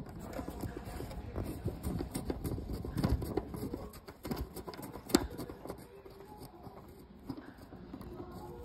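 Hands handling small hard objects: a dense run of irregular clicks, taps and rustles, with one sharp click about five seconds in, then quieter.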